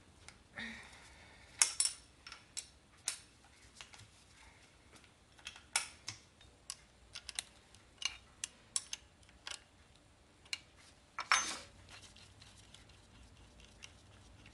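Irregular metallic clicks and clinks of a 12 mm wrench on the distributor's upper hold-down bolt as it is worked loose, with two louder clanks, one about two seconds in and one later on.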